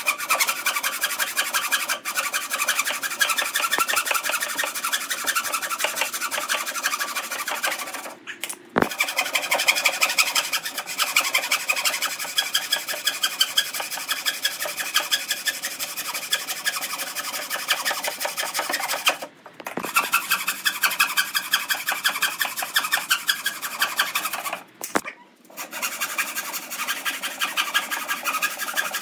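Wood being worked with an abrasive hand tool: fast, even rasping strokes in long runs, broken by three short pauses.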